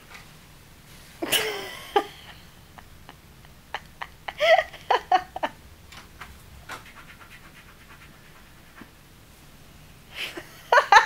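A woman's breathy laughing and panting in short bursts: one about a second in, a cluster around four to five seconds in, and more near the end, with faint small clicks in between.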